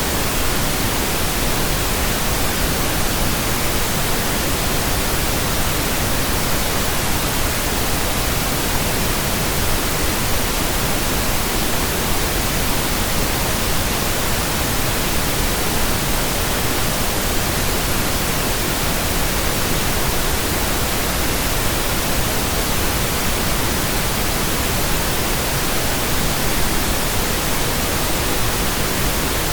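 Steady pink noise: a soft, even static hiss like a radio tuned between stations, with no change in level or pitch.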